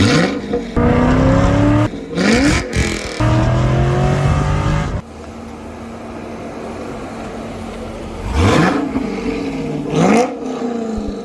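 Corvette V8 engines revving: sharp throttle blips that rise in pitch, revs held steady for a second or two, then a lower, quieter idle from about halfway through, broken by two more rising blips near the end.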